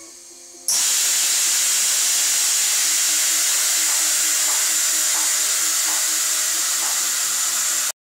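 Compressed air hissing loudly and steadily through the air-spring suspension of a lifted Suzuki off-roader as the air springs are tested. It starts abruptly about a second in and cuts off sharply near the end.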